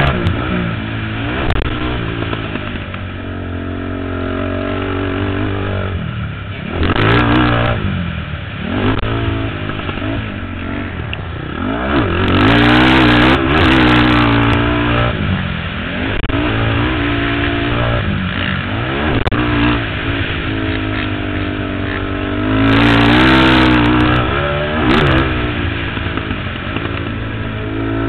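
A 450-class sport ATV's engine being ridden hard, revving up and down over and over as the throttle is opened and closed, with several louder surges along the way.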